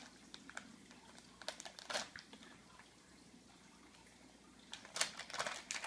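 Plastic Littlest Pet Shop blind bag crinkling as it is handled and opened, in a few short bursts with a quiet stretch in the middle.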